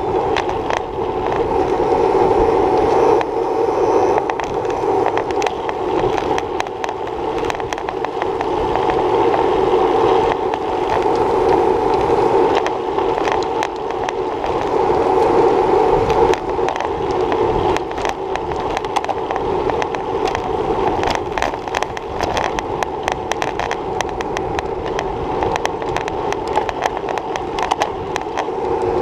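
Road bicycle riding over rough pavement, heard through a handlebar-mounted action camera: a steady muffled rush of wind and tyre noise with many small rattles and knocks from road vibration, more frequent in the second half.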